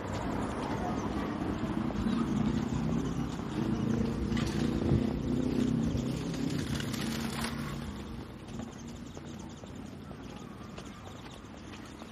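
Street noise with a motor vehicle's engine running as a steady low hum that grows louder after about two seconds and fades away after about eight, over footsteps on paving stones and faint distant voices.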